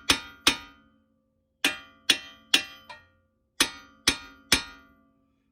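Hammer blows on a steel strut assembly, each a sharp strike with a metallic ring, in quick groups of two or three about half a second apart. They drive a front strut down into its groove on the knuckle to seat it.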